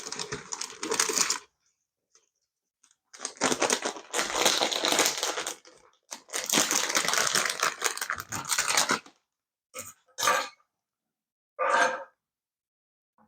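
Bursts of rustling and scraping handling noise: three long stretches in the first nine seconds, then a few short scrapes near the end.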